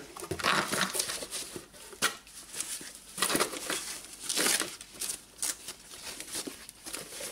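Thin foam packing wrap crinkling and rustling in irregular bursts as a part is lifted out of a cardboard box and unwrapped.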